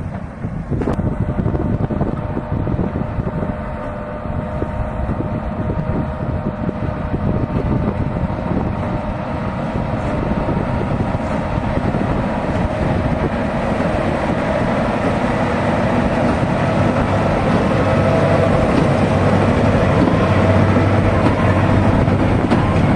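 Case 240-horsepower tractor pulling a New Holland 1290 Plus big baler while it bales barley straw: a steady engine drone that grows louder over the second half.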